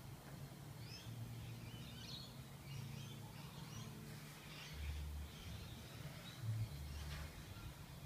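Birds chirping faintly, with a few soft low thumps, the strongest about five seconds in and again about a second and a half later.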